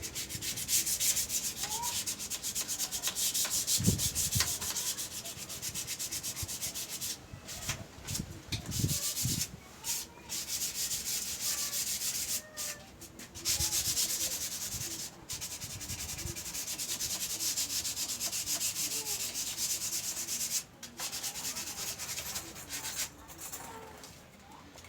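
Wooden table surface being sanded with 120-grit sandpaper in repeated back-and-forth strokes, with a few short pauses. The sealer-coated wood is being smoothed ready for varnish.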